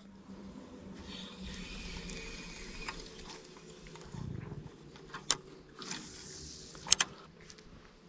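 Spinning reel cranked during a lure retrieve, its gears giving a faint ticking hiss. A brief low rumble comes about four seconds in, and two sharp clicks follow, one at five seconds and one at seven.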